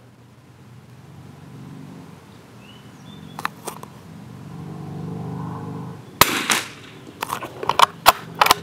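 A CZ Brno Model 4 .22 rimfire bolt-action rifle fires a single sharp crack about six seconds in. A quick run of sharp metallic clicks follows as the bolt is worked to eject the case and chamber the next round. Beneath this, a low hum builds over the first six seconds.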